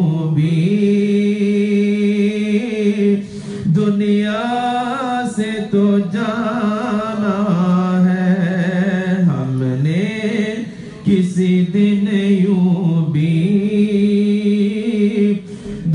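A man singing an Urdu naat (devotional poem) solo and unaccompanied into a microphone, drawing out long, ornamented notes that bend up and down, with two short breaks for breath.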